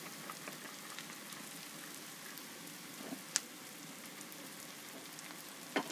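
Sliced onions and freshly added cut okra sizzling steadily in ghee in a kadhai, with a single sharp tick a little over three seconds in.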